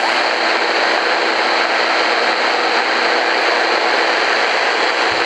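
Shortwave static from an Eton FR250 radio's speaker while it is tuned between stations: a steady hiss with a faint constant whine under it.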